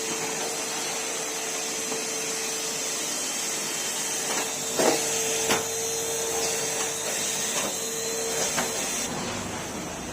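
Numatic Henry cylinder vacuum cleaner running steadily with a held hum, with a couple of sharp knocks about halfway through. The motor noise cuts off near the end.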